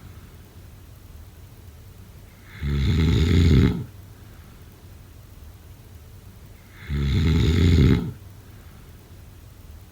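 A sleeping person snoring: two snores about four seconds apart, each lasting about a second.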